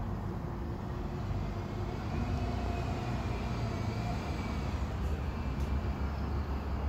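Double-decker bus driving past at low speed, a steady low engine rumble with a faint whine in the middle of the pass.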